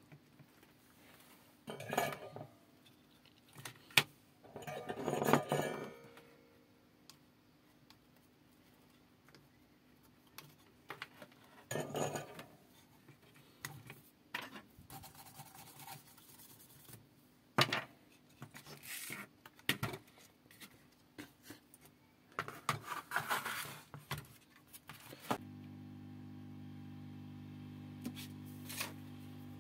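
Scattered clicks, clinks and short rustles of hands handling a soldering iron, wires and a circuit board on a workbench. Near the end a steady low hum comes in.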